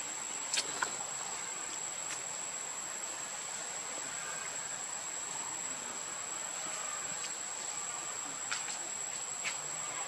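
Insects drone steadily in one unbroken high-pitched tone, with a few faint clicks about half a second in and again near the end.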